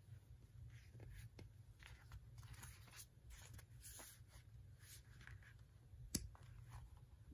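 Faint paper rustling as a thick magazine is handled and turned over, then a single sharp tap about six seconds in.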